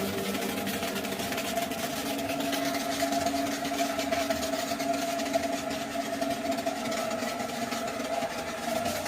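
Pressure washer running steadily, its engine or motor giving a constant hum over a continuous hiss of spray.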